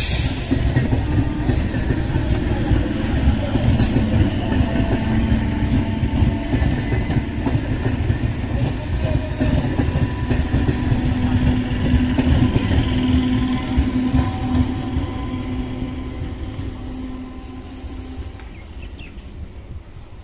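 Indian Railways EMU local train coaches rolling slowly past close by, wheels running over the rails with a steady low rumble and a low hum through the middle. The noise fades over the last few seconds as the train draws away.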